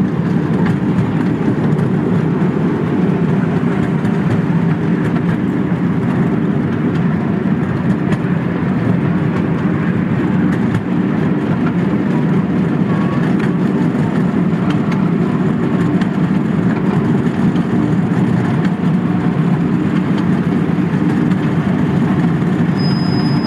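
Miniature ride-on park railway train running steadily, heard from aboard one of its open passenger cars: a continuous low rumble with a faint steady hum. A brief high squeal comes near the end.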